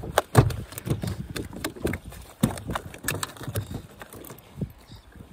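A run of irregular knocks and thumps on a small fishing boat, several a second, loudest about half a second in and again about two and a half seconds in.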